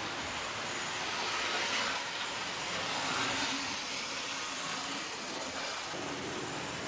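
Model trains running on an H0 layout: a steady whirring hiss of small motors and wheels on track that swells and fades a little in the middle. The sound shifts suddenly about six seconds in.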